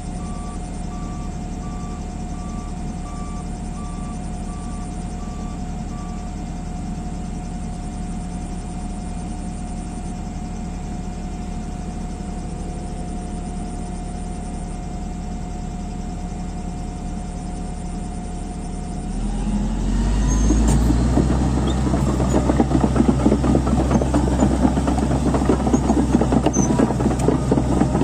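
Heavy bulldozer diesel engine running steadily, with a repeated short beep for the first few seconds. About nineteen seconds in it revs up and gets much louder, with dense rattling, as the dozer takes up the pull on a stuck 4x4.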